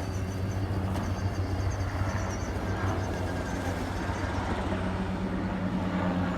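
Kobalt battery-powered brushless self-propelled lawnmower running while cutting grass: a steady low motor-and-blade hum.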